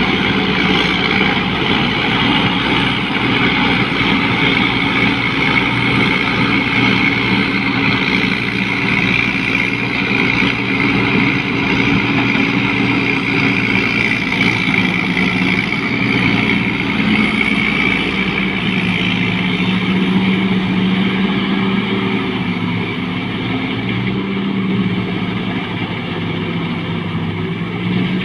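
Combine harvester running steadily, its engine drone mixed with a broad whirring of the machinery. The engine note wavers a little in pitch during the last several seconds.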